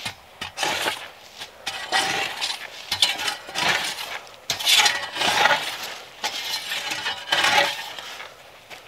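Dry leaf litter and twigs crunching and scraping in a series of irregular strokes, about one every half second to second.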